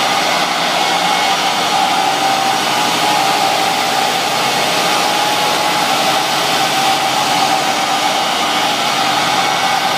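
Steady, even rushing of a large drum cooling fan blowing air at the front of a car on a chassis dynamometer.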